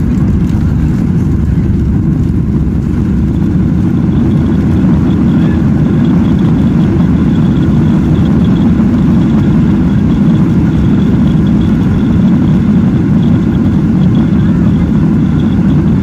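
Loud, steady low rumble of a jet airliner heard from inside the passenger cabin during landing. A faint high steady whine joins about four seconds in.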